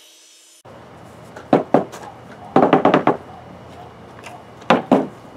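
A miter saw winding down, broken off abruptly about half a second in; then sharp knocks of short PVC pipe pieces and fittings set down on a plywood tabletop, two at first, a quick cluster about halfway through and two more near the end.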